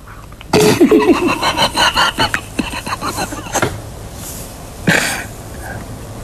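A person laughing in a run of short bursts lasting about three seconds, then a single cough about five seconds in.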